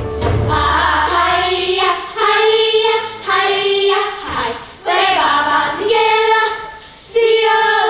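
A chorus singing a song from the stage musical in short held phrases, about five of them, each broken by a brief gap. The low backing music fades out about two seconds in.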